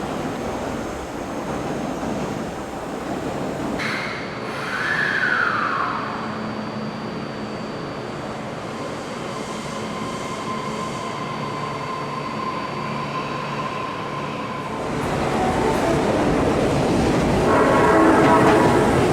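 Osaka Metro Chuo Line subway train noise at a station platform: a short falling tone about five seconds in, a steady tone through the middle, then louder running and wheel noise from about fifteen seconds in as a train moves along the platform.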